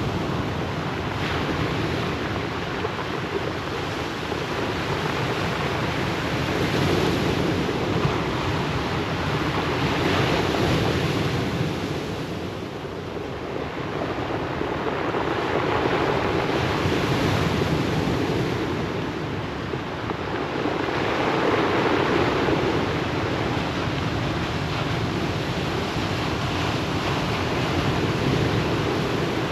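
Ocean waves breaking and washing up a pebble beach in a steady rush that swells and falls back in slow surges, one every five or six seconds.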